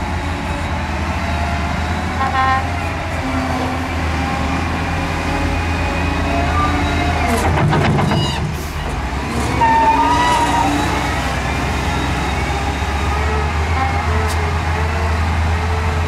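Heavy diesel earthmoving machinery running steadily with a deep, constant rumble. A short burst of clatter comes about eight seconds in.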